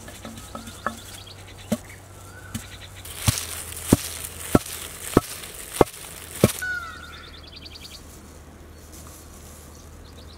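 Long wooden pestle pounding dry spices in a stone mortar: about nine dull strikes, roughly one every two-thirds of a second, the later ones heavier, stopping about six and a half seconds in as the chili, salt and seeds are beaten to a fine powder. Birds chirp in the background.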